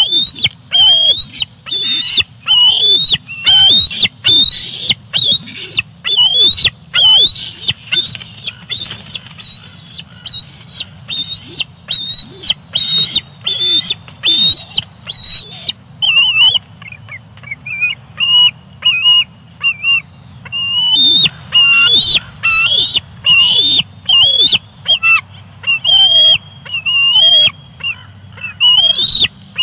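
Juvenile bald eagle giving its high squealing 'squee' calls over and over, about two a second, with the calls turning a little lower and shorter about halfway through. These are the begging and food-guarding calls of a young eagle at fish in the nest.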